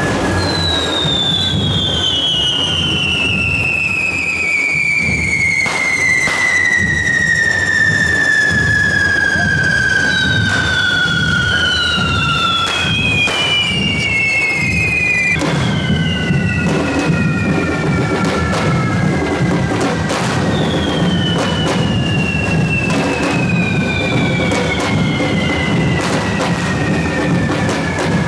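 Whistling fireworks of a correfoc, several at once: long whistles that fall slowly in pitch as they burn, overlapping, with a few sharp bangs between them.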